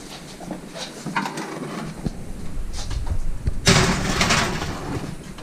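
Oven door opened and a glass baking dish set onto the metal oven rack: scattered clicks and knocks, then a louder stretch of clatter lasting about a second, a little past halfway, as the dish slides onto the rack.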